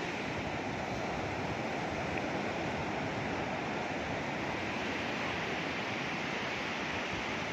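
Ocean surf breaking on a beach: a steady, even rush of waves.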